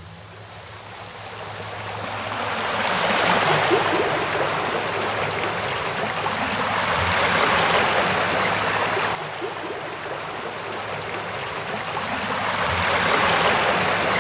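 Rushing water like a stream, fading in and then swelling and ebbing slowly every four to five seconds, over a faint low steady hum.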